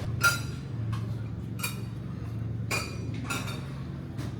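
Cutlery clinking against a plate and dishes during a meal: about six short, light clinks with a brief ring, the first the loudest, over a steady low hum.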